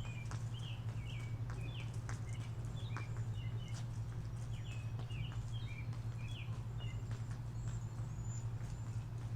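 Small birds chirping in short, quick calls many times over, against a steady low hum, with scattered sharp clicks.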